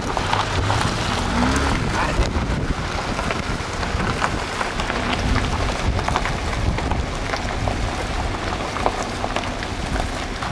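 Pickup truck engine running with a low rumble, under a steady crackling hiss scattered with small clicks.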